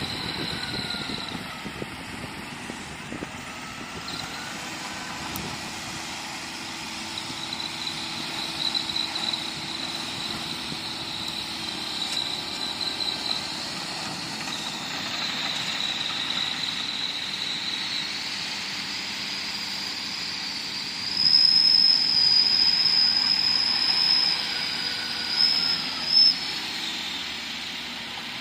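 Bulldozer at work: its engine runs steadily under a high-pitched metallic squeal that comes and goes, loudest about three-quarters of the way through.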